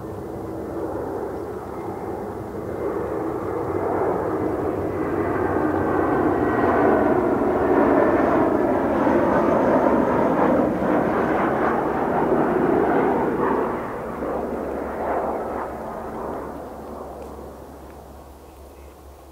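Airbus A320-214 jet airliner's twin CFM56-5B turbofans at approach power as it flies low overhead with gear down: a jet engine roar with a faint high whine that swells, is loudest around the middle, and fades away as the plane heads off toward the runway.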